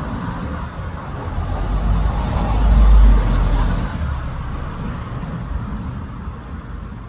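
A road vehicle passing by: a rumbling hiss that swells to its loudest about three seconds in, then fades away.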